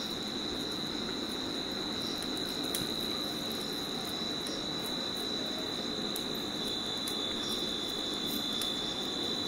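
Steady high-pitched insect trill, like crickets, holding one pitch over a faint even hiss.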